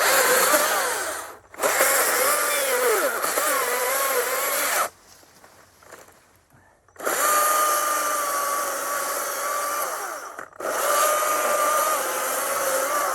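A chainsaw cuts wood in four runs with a break in the middle, a steady high whine whose pitch sags and recovers as the chain bites.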